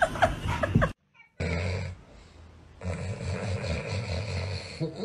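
Large mastiff-type dog snoring in deep sleep: one long rough snore through the second half. A few quick knocks come in the first second.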